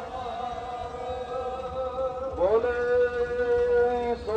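Voices chanting in long, drawn-out held notes, with the pitch sliding upward into a new held note about two and a half seconds in.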